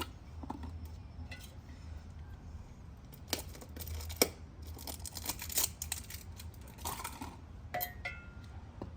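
New oil filter being unpacked: box and wrapping opened, with rustling, a bit of tearing and scattered clicks, over a steady low hum.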